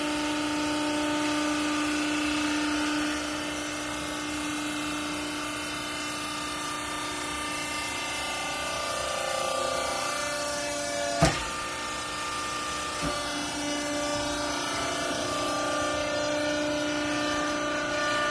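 Hydraulic garment compression baler running: a steady machine whine made of several tones whose pitch shifts partway through. There is a sharp bang about eleven seconds in and a lighter knock about two seconds later.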